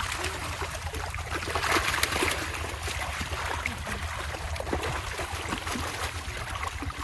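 Pond water splashing and trickling as a harvesting net full of fish is worked, with small irregular splashes throughout and a steady low rumble underneath.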